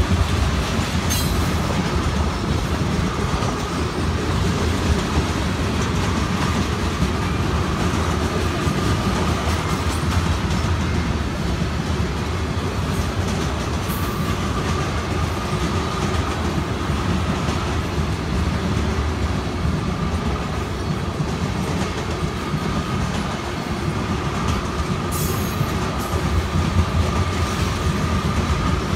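Tank cars of a freight oil train rolling past close by: a steady rumble, with the wheels clacking over the diamond crossing and a few sharper bangs. A faint wheel squeal comes and goes.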